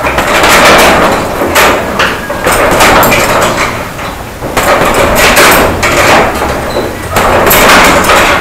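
Boxing-gloved punches landing on a hanging heavy punching bag, thudding in quick flurries with a short lull about four seconds in.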